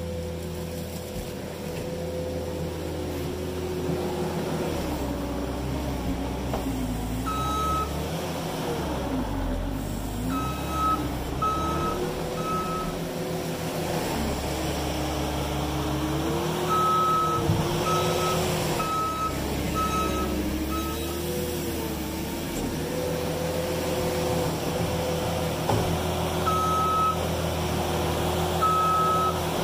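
New Holland 327 skid steer's diesel engine running, its pitch repeatedly dipping and rising under load while pushing dirt. The reversing alarm beeps in several short runs, starting about seven seconds in, as the machine backs up.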